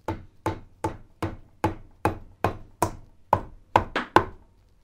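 Steady hammer taps on the timing chain cover of a Reliant 700cc engine, about eleven evenly spaced taps at roughly two and a half a second. The bolts are out and the cover is being tapped to free it from the block.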